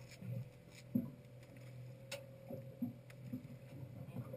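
Quiet sounds aboard a small fishing boat on the water: a steady low hum with soft, irregular knocks, and one sharp click about two seconds in.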